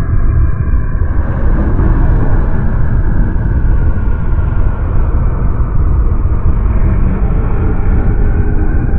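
Made-up monster sound design: a loud, continuous deep rumble with faint slowly falling tones layered above it. A hiss joins it about a second in.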